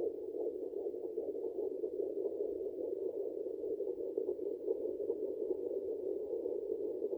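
Home fetal Doppler's speaker playing an 8–12-week fetal heartbeat: a rapid, continuous whooshing pulse, muffled and narrow in pitch.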